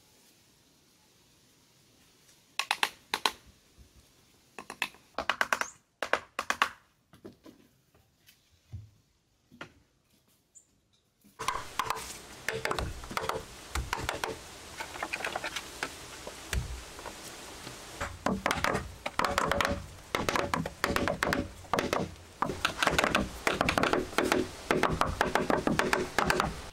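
Hollow wooden knocks of bamboo being struck, in short clusters. About halfway through, a denser, steady run of rhythmic tapping takes over.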